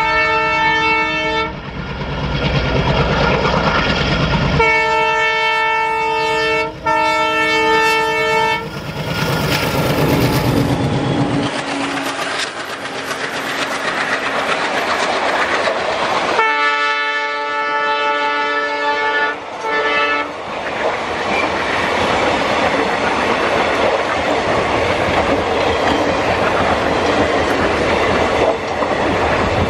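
Indian Railways diesel locomotive horn sounding three long chord blasts, with the engine rumbling under and between them. In the later part a long rake of passenger coaches rolls past, wheels clattering over the rail joints in a continuous roar.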